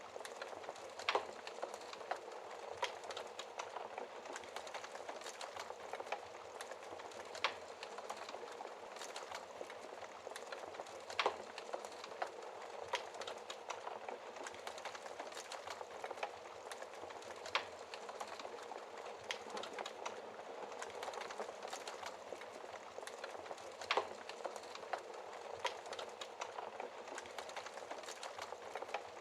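Wood fire in a fireplace crackling: a steady hiss of burning with sharp pops every few seconds.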